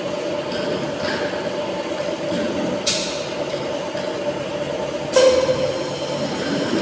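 Tilting-type air-jet bottle washing machine running with a steady mechanical hum, broken twice by a short hissing blast, about three and five seconds in, typical of the compressed-air jets cleaning the inverted bottles.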